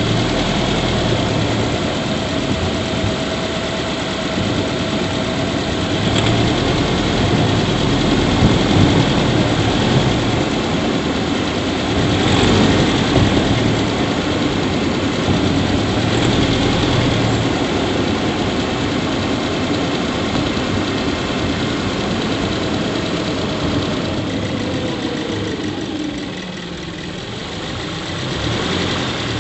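Subaru Levorg 1.6GT-S's 1.6-litre turbocharged flat-four idling steadily, heard in the engine bay, with faint short high chirps now and then. This is the abnormal squeak ('kyuri') the owner is tracking down, which grows louder the longer the engine runs. The engine sound dips briefly near the end.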